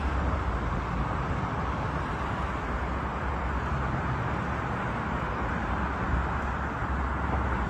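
Steady outdoor rushing noise with a deep, uneven rumble underneath.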